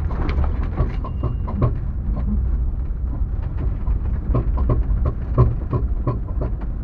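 Vehicle driving slowly over a rutted, muddy dirt road: a steady low rumble with irregular knocks and rattles from underneath, the loudest about five and a half seconds in. The occupants take it for something loose underneath and suspect the CV joint.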